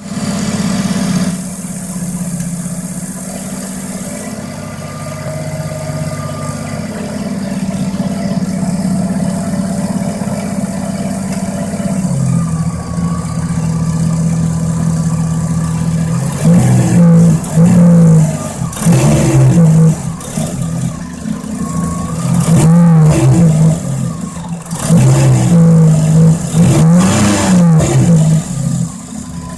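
Mazda RX-7's rotary engine idling steadily, then revved up and let fall back several times in the second half. The owner takes the sound to show an exhaust leak.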